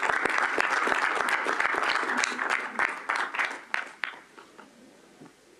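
Applause from the delegates around the summit table, many hands clapping at once, dying away about four seconds in.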